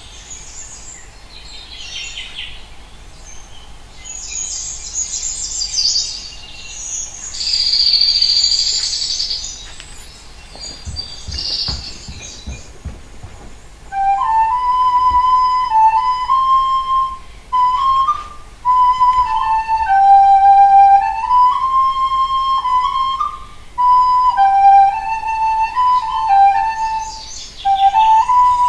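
Birds chirping and trilling for about the first half, with a few low thumps around eleven to thirteen seconds in. From about halfway a flute plays a slow stepwise melody, and birds chirp again near the end.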